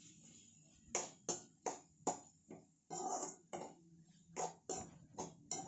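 A spatula stirring and scraping thick fish masala around an aluminium kadai, in short strokes about two or three a second, starting about a second in.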